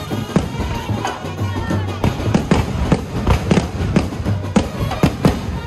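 Fireworks going off overhead in quick, irregular succession, about three sharp bangs a second, with music playing underneath.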